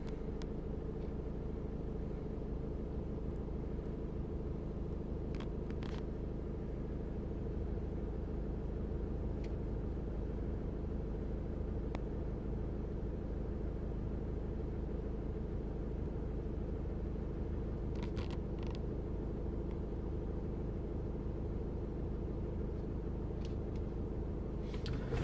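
Skoda car engine idling steadily, heard from inside the cabin as an even low hum, with a few faint clicks.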